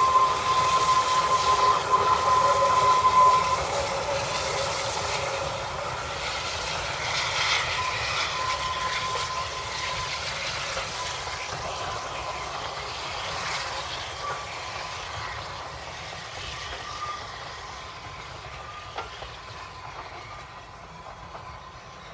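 Narrow-gauge steam train running on the line, with running noise and some hiss, fading gradually over the twenty seconds. A steady high tone sounds for about the first three seconds.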